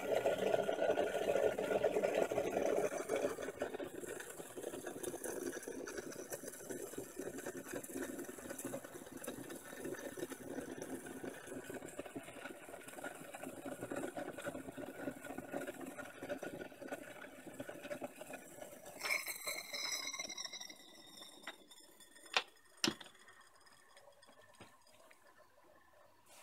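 Water boiling and bubbling in the lower glass bulb of a vacuum (siphon) coffee maker on an electric hob, a steady seething sound. About 19 s in there is a brief high squeak, then two sharp knocks, and the bubbling dies down.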